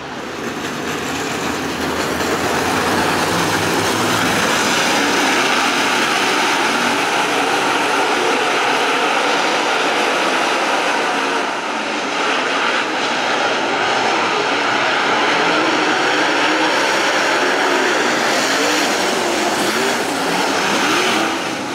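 A pack of dirt-track race cars running laps at full throttle: a loud, continuous engine drone. Near the end, individual engine notes rise and fall as cars pass through the turn.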